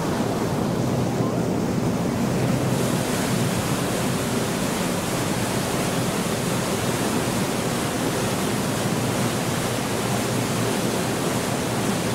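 Steady rushing noise of a sightseeing boat under way on the canal, its engine running under the wash of water. The high hiss grows louder about three seconds in.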